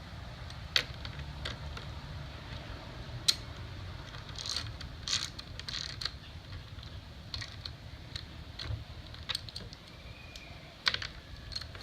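Scattered sharp clicks and light metallic clinks of battery hardware and fittings being handled during installation, over a low steady rumble.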